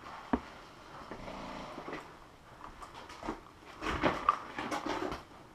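Knocks and clatter of a paintball player moving quickly across a wooden floor: a single sharp click near the start, then a quick run of footfalls and gear knocks about four seconds in.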